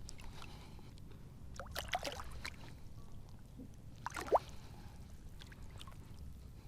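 Shallow water sloshing and splashing, in two short bouts about two seconds and four seconds in, the second ending in a sharp plop.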